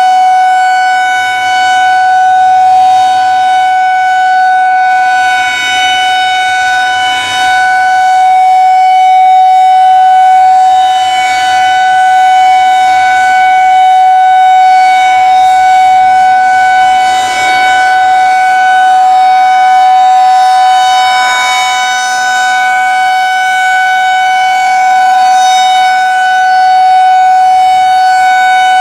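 Federal Signal 2001-DC Roundback outdoor warning siren sounding its steady test tone at full pitch. The tone holds one note and swells and fades every few seconds as the siren head rotates.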